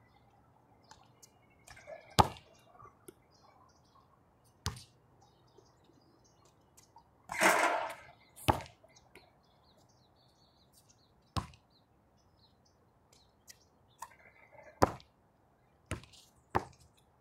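Basketball on an outdoor hard court: single sharp thuds a few seconds apart as the ball bounces and is shot at the hoop, with one longer, noisier sound lasting under a second about halfway through.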